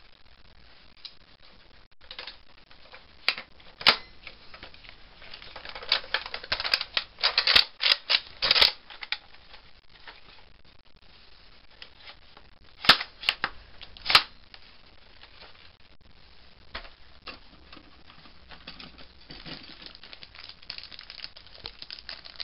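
Plastic clicks and clacks from a Nerf Raider CS-35 blaster being handled: a dense run of rapid snaps about six to nine seconds in, then a few sharp single clacks a little later, with softer handling rustle toward the end.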